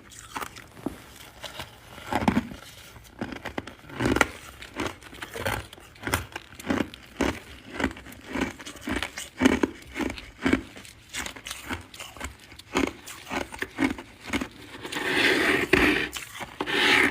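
Ice being bitten and chewed with repeated crunches, about one or two a second. A longer crackling, scraping crunch comes near the end.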